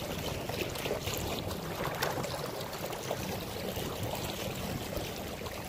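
Water rushing and splashing steadily along the hull of a small plywood mini boat under way on a quiet electric motor.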